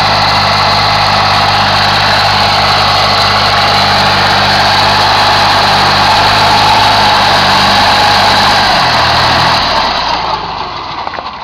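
Foton Lovol TE254 wheeled tractor's diesel engine running steadily under load while hauling a loaded trailer up a steep climb. About nine seconds in its pitch drops and the sound then fades away.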